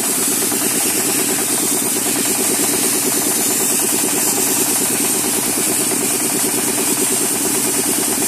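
Wet sandblasting machine at work: its belt-driven compressor running steadily with a rapid even pulse, under a strong steady hiss from the blast nozzle spraying the water-and-sand jet.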